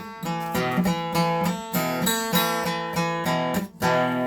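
Acoustic guitar strummed in a steady rhythm of chords, an instrumental gap between sung lines of the song.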